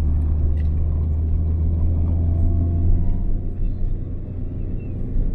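Fiat Palio's engine and road noise heard from inside the moving car: a steady low drone that eases a little about three seconds in.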